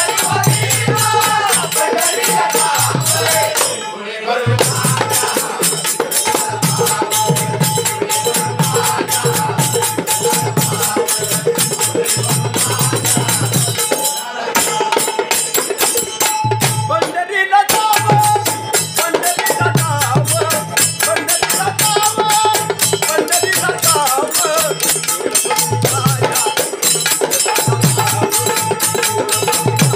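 Marathi bhajan accompaniment: jingling hand percussion keeps a fast, even rhythm over a pulsing drum beat, with a steady held melodic tone. The percussion breaks off briefly about four seconds in and again around the middle.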